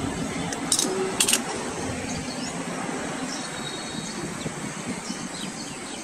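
Outdoor ambience: a steady hum of distant traffic with faint scattered bird chirps and a brief thin whistle near the middle. Two short hissing bursts about a second in are the loudest sounds.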